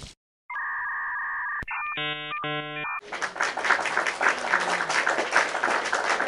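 Cartoon sound effects: a steady electronic tone lasting about a second, then two short buzzer-like beeps, then from about three seconds in a glittering sparkle shimmer.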